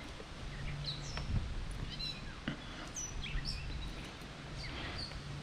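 Birds chirping and whistling in short scattered calls over a quiet outdoor background, with a couple of faint knocks.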